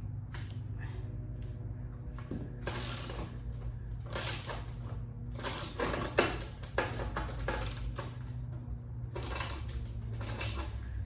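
Ratchet wrench with a T45 Torx bit turning a bolt out of a motorcycle's rear fender, in several runs of quick clicking strokes.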